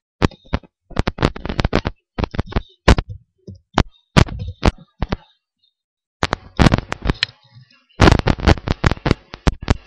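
Computer keyboard being typed on: rapid keystroke clicks in quick runs with short pauses and a longer pause about five seconds in.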